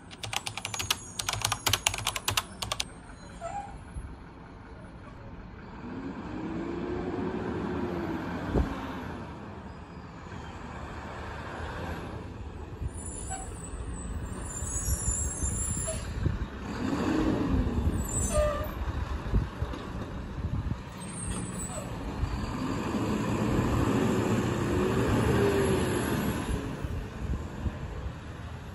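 Mack LR garbage truck's diesel engine revving up and settling back three times, with short air-brake hisses between. A rapid burst of sharp clicks near the start.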